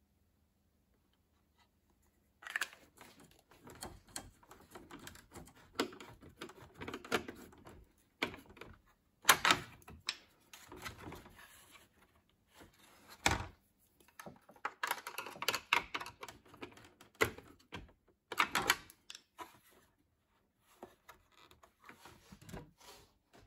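Irregular clicking, tapping and knocking of tools and parts being handled, coming in spurts with short pauses. A sharp knock comes about nine seconds in and a heavier thunk about thirteen seconds in.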